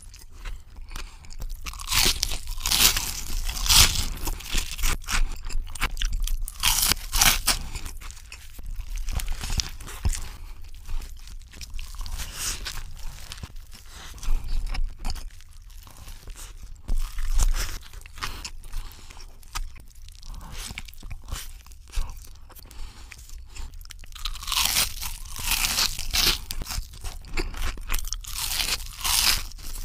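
Close-miked ASMR eating: crisp crunching and chewing of battered onion rings and a cheeseburger, in repeated bursts of loud crunches with softer chewing between them.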